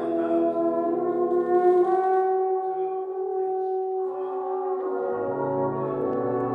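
Brass band, with euphoniums and trombones, playing held chords in rehearsal; the chord changes about four seconds in and lower bass notes come in about a second later.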